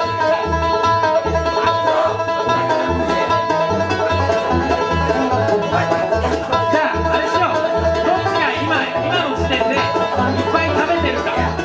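Bluegrass band playing, with a banjo picking busy runs over a bass line that steps between two low notes about twice a second.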